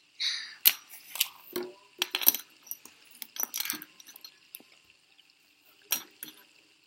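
Irregular sharp clicks and clinks of hard, partly metal fidget spinners being handled and knocking against each other and a hard surface, about a dozen over several seconds.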